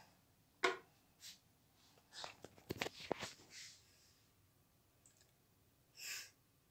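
Faint handling noise from a phone being moved by hand: scattered soft clicks and rustles, bunched together about two to three and a half seconds in, with a short rustle near the end.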